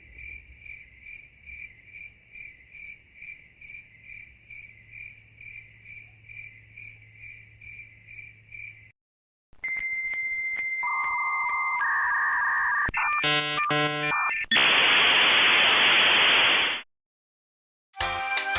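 Crickets chirping in an even rhythm, about two chirps a second, for nine seconds (the 'awkward silence' meme sound). Then a dial-up modem handshake: a steady answer tone, beeps stepping between pitches, rapid warbling tones and a loud hiss that cuts off suddenly. Music begins near the end.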